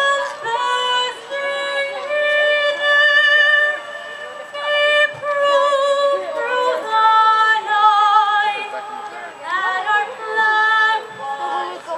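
Live singing: a high female voice holds long notes with vibrato, one after another, with little accompaniment beneath it.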